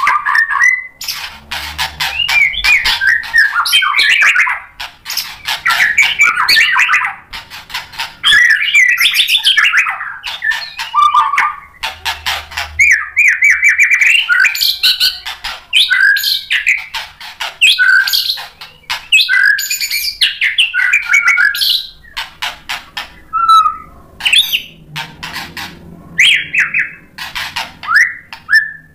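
White-rumped shama singing a long, varied song: rapid whistled phrases mixed with sharp clicking and chattering notes, delivered in loud runs with brief pauses a few times. This is a shama in full song, running through its repertoire of filler phrases.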